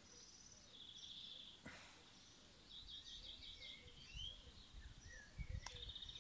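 Faint outdoor birdsong: short high chirps, a brief trill and a few quick rising and falling notes, over near silence. A light click comes about two seconds in, and a few soft low bumps near the end.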